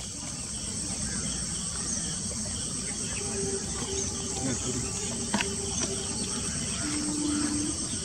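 Outdoor insect chorus, a steady high buzzing like crickets, over a low rumble. From about three seconds in there are a few short, low, level tones, the last a little lower and longer, and a single sharp click a little after five seconds.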